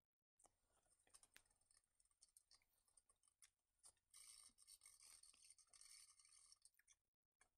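Faint scraping of a steel chisel paring pine by hand in a mortise, with a few light ticks; a longer run of scraping starts about four seconds in and stops near the end.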